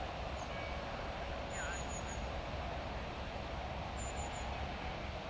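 Steady outdoor background rumble and hiss, with a small bird calling twice in quick series of three or four high chirps, about a second and a half in and again near the end.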